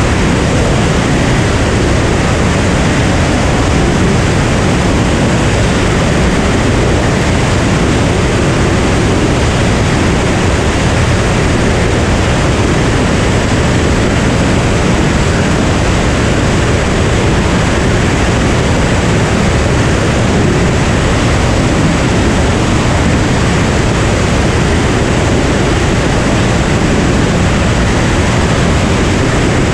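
Cirrus SR22 single-engine plane in flight: a loud, steady rush of propeller, engine and airflow noise blended together, with no change in pitch or level.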